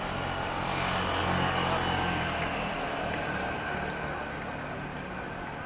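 A motor vehicle engine runs close by over general street noise. It is loudest about a second in, and its low hum drops away after about two and a half seconds.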